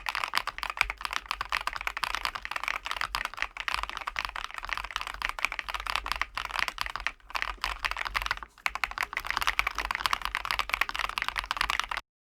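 Fast typing on a ROYAL KLUDGE M87 mechanical keyboard: a dense, continuous run of key clicks, with brief pauses about seven and eight and a half seconds in, stopping just before the end.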